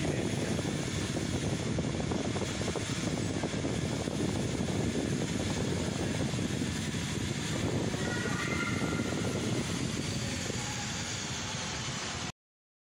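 Steady low rumbling background noise of a large indoor concourse with moving walkways. A few faint short tones show about eight seconds in, and the sound cuts off suddenly near the end.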